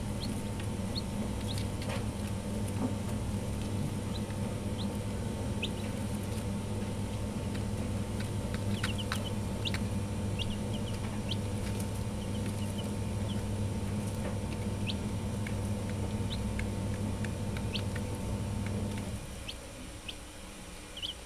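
Domestic chicken chicks peeping in short, high cheeps, scattered and busiest about eight to ten seconds in. Under them runs a steady low hum that drops away about nineteen seconds in.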